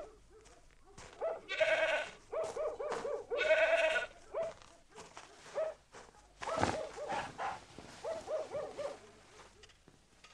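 An animal bleating over and over in short, wavering calls, loudest in the first half, with a single knock a little past the middle.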